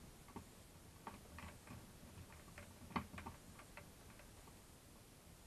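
Faint, irregular clicks and taps of small screws and the plastic arm cover being fitted back onto a toy quadcopter arm, with one sharper click about three seconds in.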